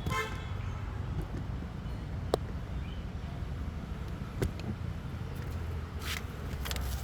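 Steady low background rumble. Two sharp clicks come about two and a half and four and a half seconds in, and two short hisses near the end.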